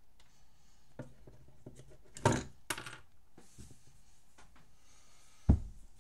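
Hands handling a plastic Lego Technic model car on a wooden table: a small click about a second in, two sharp knocks a little after two seconds, and a heavier thump near the end.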